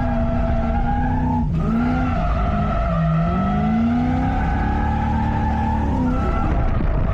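Lexus SC400 drift car on a drift run: the engine is held at high revs over the hiss of skidding tyres. About a second and a half in the engine note briefly cuts, then dips and climbs again.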